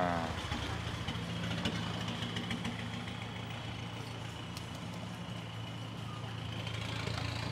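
A motor vehicle engine idling steadily, with light clicks over it.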